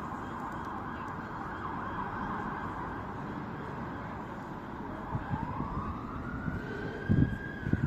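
Emergency vehicle siren wailing over steady background noise, its pitch rising slowly over the last three seconds or so. A few low thumps come near the end.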